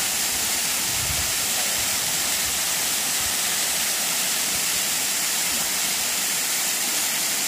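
Steady rushing of a small waterfall and rocky creek, an even hiss of running water with no change in level.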